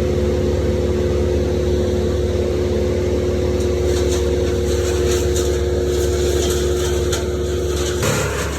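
An engine running at a steady speed, with scattered crackling ticks from about three and a half seconds in; its pitch shifts and it drops a little in level near the end.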